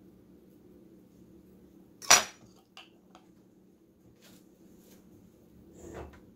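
A kitchen utensil knocks once, sharp and loud, about two seconds in, followed by a few faint clicks and a softer knock near the end, over a faint steady low hum.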